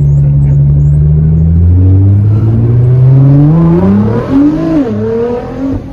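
Nissan GT-R's engine heard inside the cabin, running steadily and then climbing in pitch as the car accelerates, with a brief dip about four and a half seconds in before it climbs again.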